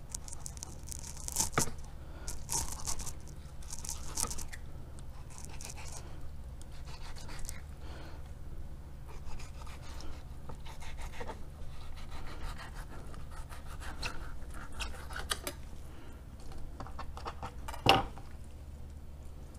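Fillet knife slicing through black drum flesh and skin and scraping against a plastic cutting board in short, irregular strokes, with one sharp knock near the end. A steady low hum runs underneath.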